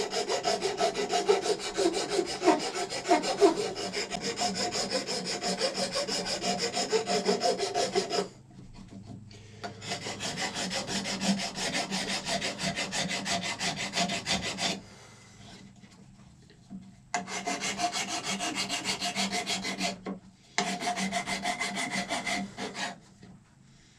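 A hand file rasping across a dried cow horn in quick, even strokes, several a second, in four bouts with short pauses between them: the horn being filed down for a powder horn.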